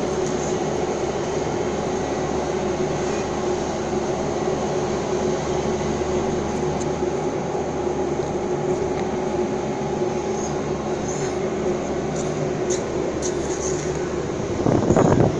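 Mobile crane's diesel engine and hydraulics running steadily under load while hoisting a heavy wind-turbine nacelle, a constant mechanical drone with a steady hum in it. It surges louder briefly near the end.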